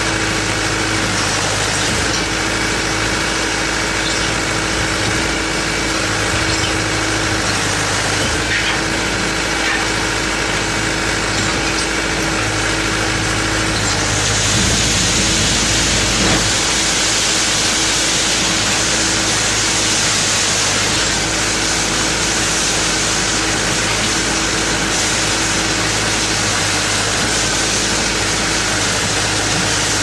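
Trailer-mounted concrete pump running steadily with a constant machine hum. About halfway through, a louder hiss joins it for several seconds.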